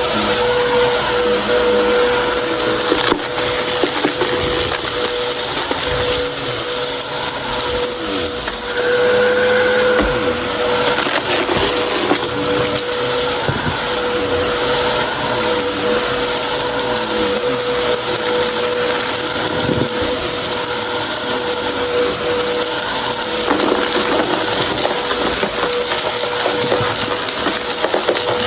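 Vacuum cleaner running with a steady motor whine while sucking up a crunchy mess, the debris crackling and rattling as it is picked up.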